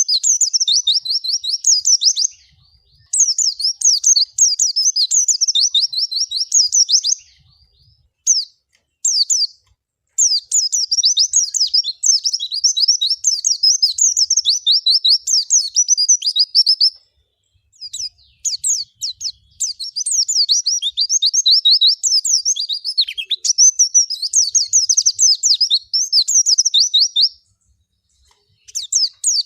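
White-eye (pleci) singing long runs of fast, high chattering notes, broken by short pauses of a second or so.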